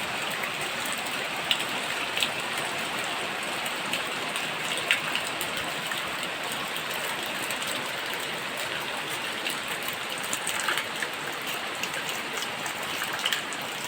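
Steady summer rain falling, a constant hiss with scattered sharper drops.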